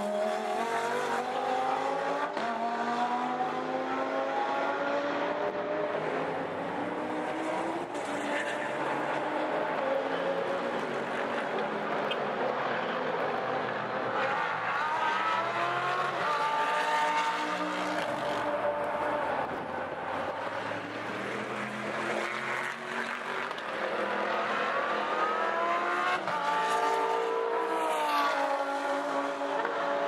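Audi R8 LMS Ultra GT race cars with their V10 engines passing one after another at racing speed. Each accelerates hard, the engine note rising and then breaking at every upshift.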